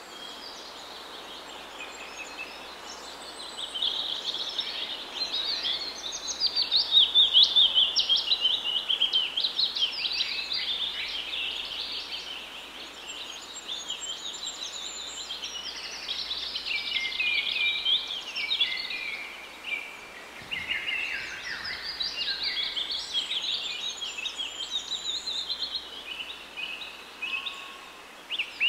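Several small birds singing and chirping, a busy overlapping chorus of quick high notes, over a faint steady outdoor hiss.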